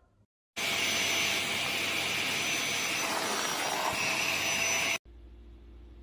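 Jetzt V10 PRO UV corded handheld dust-mite vacuum cleaner running: a loud, steady motor rush with a high whine. It starts abruptly about half a second in and cuts off abruptly about a second before the end, leaving a much quieter low hum.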